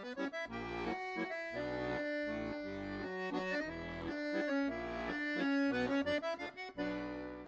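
Accordion music: a tune played over sustained chords and regular bass notes.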